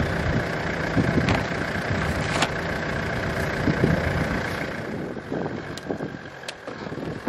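Mitsubishi Delica van's engine running, then pulling away with the long sawmill trailer in tow; the engine sound grows weaker about two-thirds of the way through, with a few sharp clicks along the way.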